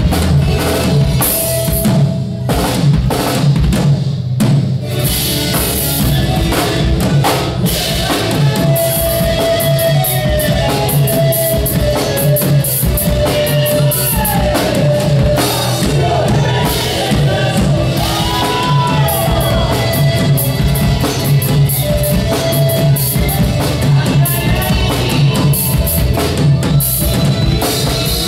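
Live Andean band playing: charango and acoustic guitars strummed over a drum kit's steady beat, with a melody line that glides in pitch partway through.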